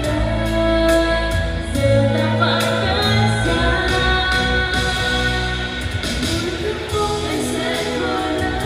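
A song: singing in long held notes over instrumental accompaniment.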